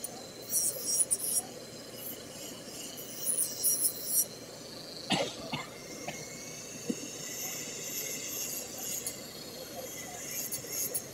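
Electric nail drill grinding a fingernail into shape: high-pitched grinding in short bursts at first, then a steadier high whine. A brief sharp knock about five seconds in.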